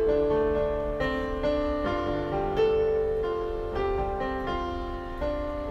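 Background piano music: single notes and chords struck about once or twice a second, slowly growing quieter.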